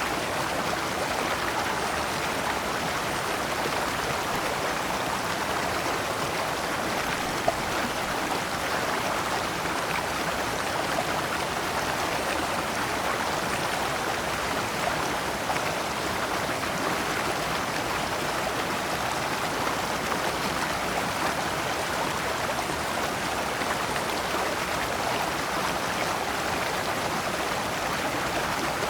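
Shallow rocky stream flowing steadily over stones in small cascades, an even splashing rush with a brief louder tick about seven seconds in.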